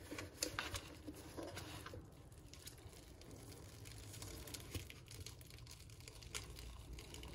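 Faint clicks and rubbing of hands working a plastic kebab press, pushing the noodle-and-chicken mixture down. The clicks are thickest in the first two seconds, with a few scattered ones later.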